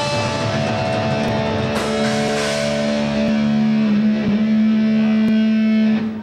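Thrash metal band playing live: distorted electric guitars hold a sustained chord over drum-kit cymbal crashes, and the music cuts off abruptly near the end.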